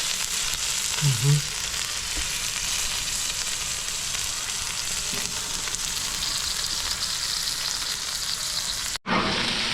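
Thick tomahawk ribeye steak searing on a Blackstone flat-top griddle, with vegetables sautéing beside it: a steady sizzle. It cuts out abruptly near the end and resumes.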